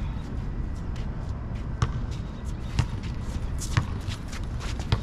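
A basketball being dribbled on an outdoor asphalt court, bouncing about once a second over a steady low rumble.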